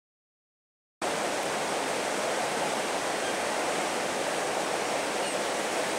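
Dead silence for about the first second, then the steady rush of a whitewater river rapid breaking over rocks.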